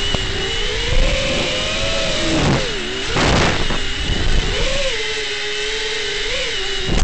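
The brushless motors and propellers of an FPV quadcopter run on a 4S battery with a steady whine. The whine rises and falls in pitch as the throttle changes, and a brief rush of noise comes about three seconds in. A sharp knock at the very end comes as the quad sets down.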